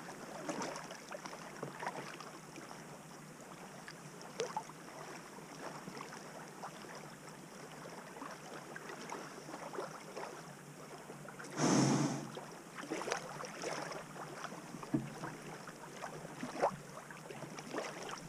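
Kayak paddling on calm water: quiet scattered drips and small splashes from the paddle, with one louder swish of a paddle stroke about twelve seconds in.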